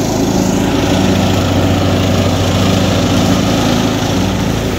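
Lawn mower engine running steadily while cutting grass.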